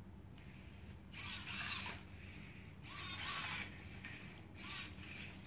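Servo motors of a small Robi humanoid robot whirring in three short bursts as it walks forward.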